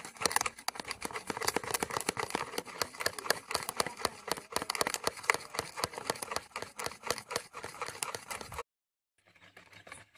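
Steel spoon rapidly beating a thin mixture of instant coffee, sugar and hot water in a bowl by hand for dalgona coffee, a fast run of wet clicks and scrapes against the bowl. It stops abruptly near the end.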